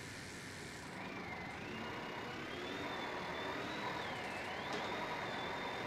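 E-bike rear hub motor spinning the lifted rear wheel under throttle at the lowest power setting: an electric whine that starts about a second in and rises in pitch, dips briefly with a click about four and a half seconds in, then holds steady.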